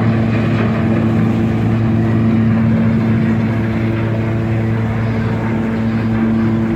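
Cruise ship's horn sounding one long, unbroken low blast over general noise, a warning while the ship, out of control, drives into the quay and a moored river boat.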